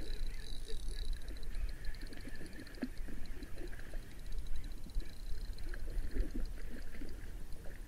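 Spinning reel cranked against a hooked pike, a fast, even ticking that fades after about three seconds, over a low steady rumble, with the fish splashing at the surface about six seconds in.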